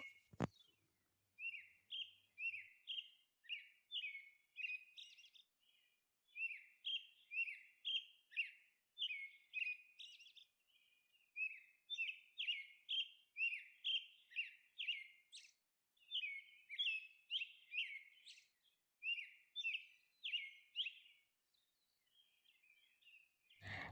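Faint small-bird chirping: quick, short chirps, several a second, coming in runs with brief pauses. There is a single click about half a second in.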